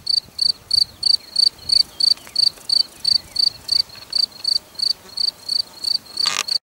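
A cricket chirping in a steady, even rhythm, about three high-pitched chirps a second. There is a short burst of noise near the end.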